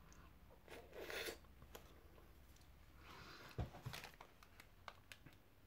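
Faint sounds of someone eating a Twister ice lolly: a short mouth noise about a second in, another around three seconds in with a soft knock, then a few small clicks.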